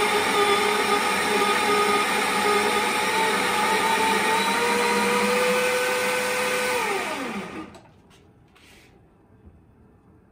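Electric coffee grinder grinding an espresso dose into a portafilter: a steady motor whine with a few held tones. About seven seconds in the motor is switched off and winds down, its pitch falling as it stops.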